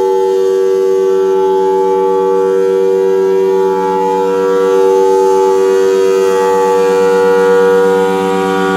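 Federal Signal Thunderbolt 1003A tornado siren sounding its steady Alert signal: a loud, steady two-note chord from its 4/5-port chopper. It dips and swells slightly in loudness as the rotating head turns.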